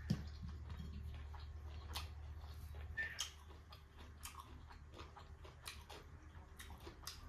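A person eating rice and pork curry by hand: chewing with scattered soft mouth clicks, over a steady low hum. There is a soft thump right at the start.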